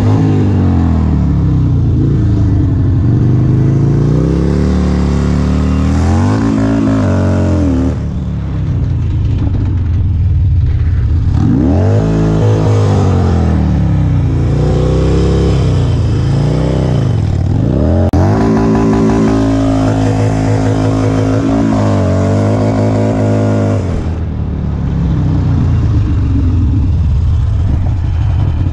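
A vehicle engine revving hard again and again, its pitch climbing and falling every couple of seconds.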